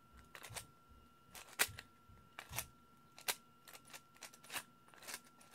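Hand-operated plywood iris being turned open and closed: sharp wooden clicks and knocks, irregular, about one or two a second, as the blades and their screw pins catch and slide in their tracks.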